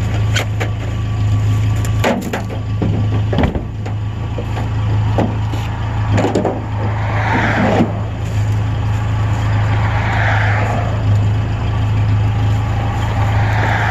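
Steady low hum of an idling pickup truck engine, with scattered knocks and clunks from handling near the microphone, clustered around two to three and a half seconds in and again around six to eight seconds.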